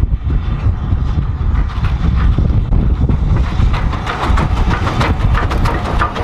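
Maunsell U class 2-6-0 steam locomotive no. 31806 and its coaches approaching and passing, wheels clattering over the rail joints, getting louder and busier from about four seconds in. Heavy wind rumble on the microphone runs underneath.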